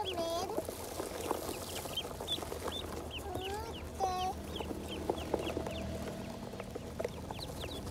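A flock of ducklings peeping nonstop, many short, high, overlapping calls, with some lower calls mixed in.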